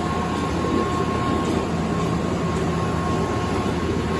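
Drive machinery of a 1961 Stadeli chairlift running: a steady mechanical rumble with a constant whine over it.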